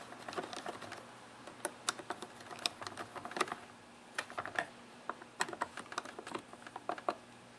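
A flat screwdriver tightening the retaining screws on a Stihl MS260 chainsaw's air filter. It makes a run of light, irregular clicks and ticks as the blade works in the screw slots and the filter seats on its housing.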